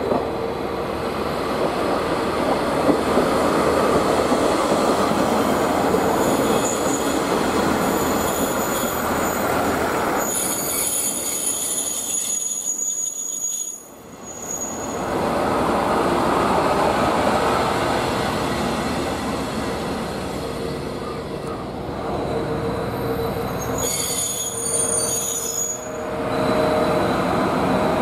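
KiHa 40-series diesel railcar pulling into the station and braking: steady engine and rail running noise, with high-pitched wheel and brake squeal about a third of the way in and again near the end. The sound drops away briefly about halfway through.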